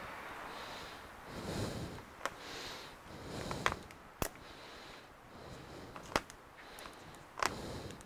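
Plastic clothes pegs clamped along a tablet screen clicking and knocking as the clamped panel is handled: several sharp clicks spread over the seconds, with soft swells of handling noise between them.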